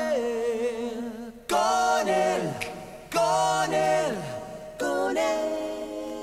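Layered a cappella voices singing held chords in close harmony, with no instruments. New phrases come in about a second and a half, three seconds and five seconds in, and some voices slide down in pitch as each phrase ends.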